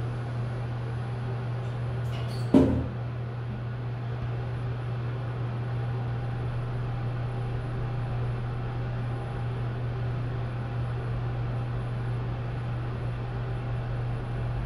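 Hyundai WBST1 traction elevator with VVVF drive, riding upward, heard from inside the car: a steady low hum with faint steady tones above it. A single sharp knock comes about two and a half seconds in.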